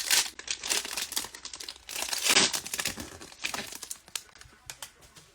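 A 2022 Topps Triple Threads card pack's wrapper crinkling and tearing as it is opened by hand, in quick irregular crackles that thin out after about four seconds.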